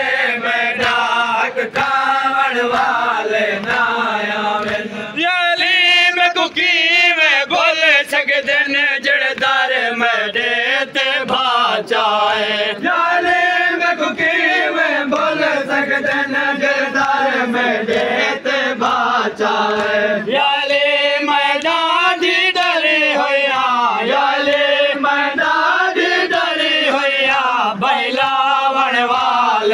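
Men chanting a noha, a Shia lament, in long melodic lines. Under it runs a steady beat of hands striking chests (matam).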